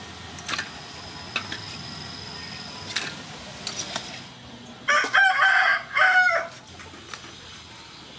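A rooster crows once, about five seconds in. The crow lasts about a second and a half and is the loudest sound. Before it come a few sharp clicks of metal tongs against an aluminium basin of live crabs.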